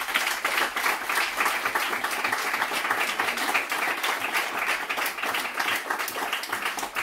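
A crowd applauding with steady, dense clapping.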